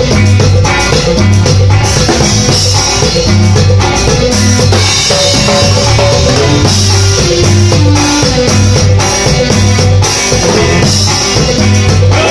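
Loud live band music: electric bass guitar and drum kit playing a steady, even beat with a repeating bass line.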